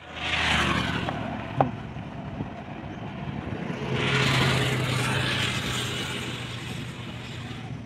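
Road vehicles passing, a rushing tyre-and-engine noise that swells near the start and again about four seconds in, the second with a steady low engine hum.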